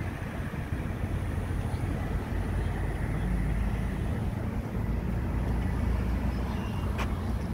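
Steady low outdoor rumble, much like wind buffeting the microphone, swelling a little in the middle, with a single sharp click about seven seconds in.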